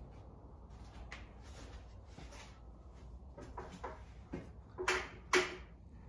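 A Hampton Bay Jericho II ceiling fan running with a low steady hum, while a series of short clicks and rattles sound, the two loudest close together near the end.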